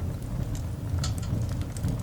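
Coal fire burning: a steady low rumble of the flames with scattered crackles and snaps, the sharpest about a second in.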